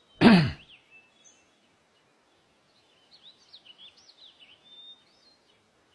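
A short, loud sound with a falling pitch just after the start, then faint birds chirping a few times in the background.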